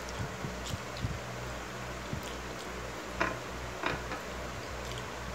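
Mouth sounds of someone eating a banana off a plate without using her hands: a few soft bites and smacks, two clearer ones about three and four seconds in, over a steady low hum.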